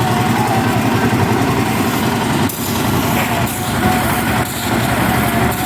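Concrete mixer's engine running steadily, a dense mechanical rumble with a faint wavering whine above it.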